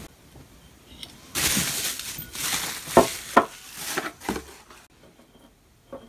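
Plastic packaging film crinkling as it is stuffed into a small cardboard box, with several sharp knocks and clinks of the box and a glass cup on the desk. A single light tick comes near the end.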